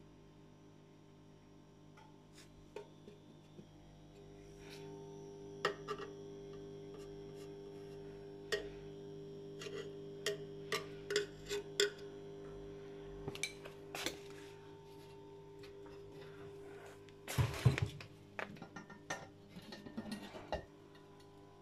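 Magnetic choke ballast of a 1973 Mesko OURW street lamp humming steadily with the lamp switched on, the hum growing a little louder about four seconds in. Scattered clicks and knocks from handling the metal lamp housing, with a louder clatter near the end.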